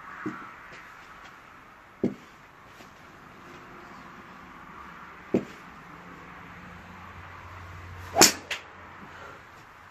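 Golf clubs striking balls: several sharp knocks spread through, the loudest and brightest about eight seconds in, with a smaller one right after it.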